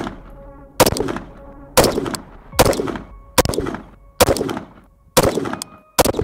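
AR-15 with a 13.7-inch barrel firing 5.56 rounds, single shots at a steady pace of about one a second: seven sharp reports, each trailing off in a short echo.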